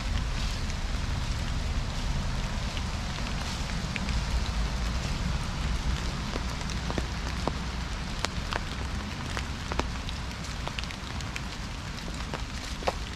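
Outdoor ambience: a steady low rumble and soft hiss, dotted with scattered light ticks and crackles at irregular intervals.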